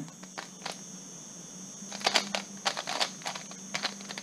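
Plastic Skewb puzzle being twisted by hand, a run of quick clicking turns in short clusters as the puzzle is set up for the next case.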